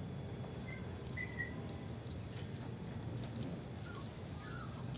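Crickets trilling in one steady high-pitched tone, with a few faint short chirps over a low steady background hiss.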